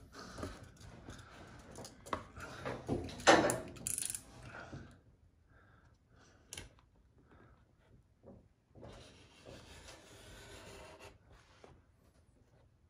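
Wallpaper mural paper being rubbed and scraped against the ceiling with a hand tool as it is pressed and worked into place: a run of rustling, scraping strokes, loudest in the first few seconds, then softer, with one sharp tick a little after six seconds.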